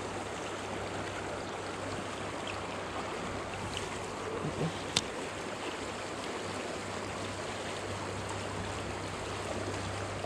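Swollen stream rushing steadily through a fast riffle, its water high after heavy rain. About five seconds in there is one sharp click.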